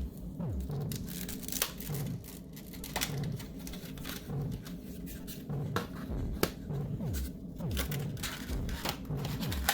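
Hands working on a laptop during a hard-drive swap, handling the drive and its parts: scattered sharp clicks and short scrapes, with some crinkling.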